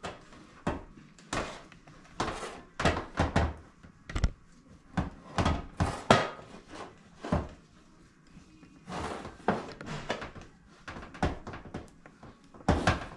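Irregular knocks and clatters from handling a large stainless steel cooking pot and its lid, with a short lull past the middle.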